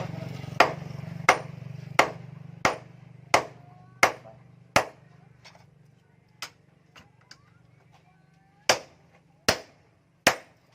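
Hand hammer striking a forged axe head on an anvil, a steady rhythm of heavy blows a little faster than one a second. The blows give way to a few light taps in the middle, then heavy blows resume near the end, over a low hum that fades out about halfway.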